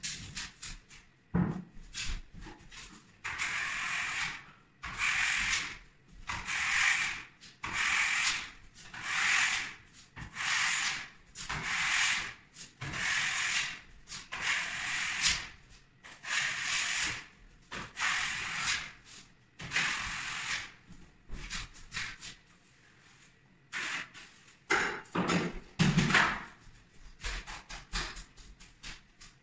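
Drywall smoothing blade on a telescopic pole drawn across wet joint compound over the taped ceiling joints: a long run of scraping strokes, about one a second. A few knocks follow near the end.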